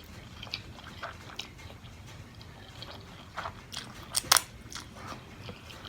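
Close-miked chewing of crunchy food, with a few sharper crunches about three and a half to four and a half seconds in.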